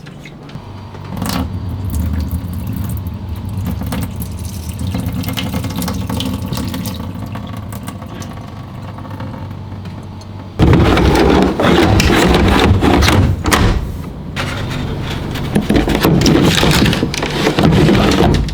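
A laundry machine runs with a steady low motor hum. About ten seconds in, a much louder rushing, churning noise starts suddenly and keeps going.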